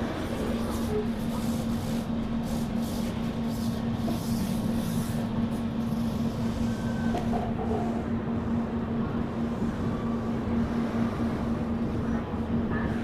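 Rajdhani Express passenger train running through a station, heard from aboard: an even rumble of wheels on track with a constant hum.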